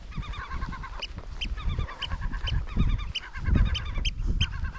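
A flock of gulls calling overhead, many short, sharp calls repeated quickly by several birds at once, typical of gulls alarmed by an intruder near their nests. Wind rumbles on the microphone underneath.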